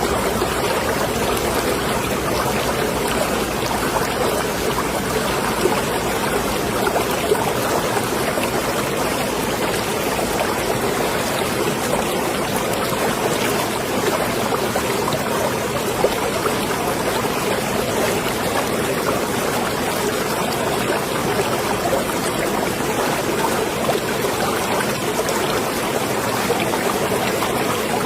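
Marina water lapping and trickling steadily, with a few small louder splashes.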